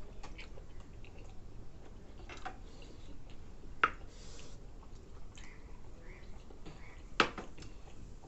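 Quiet chewing and wet mouth sounds of people eating steamed momos, with two sharp clicks or lip smacks, a little under four seconds in and near the end.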